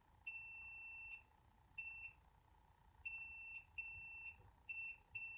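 Multimeter continuity beeper giving six high beeps of uneven length as the probes are touched across the compressor's terminals. The beep shows continuity through the motor windings, which is what a good compressor should show.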